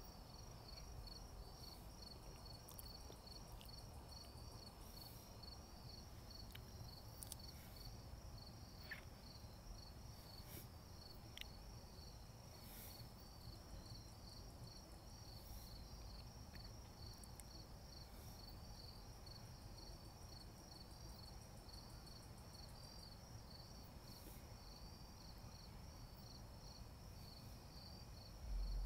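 Crickets chirping steadily and faintly, a fast even pulse throughout, over a low rumble. A few faint scattered pops come from the wood fire crackling.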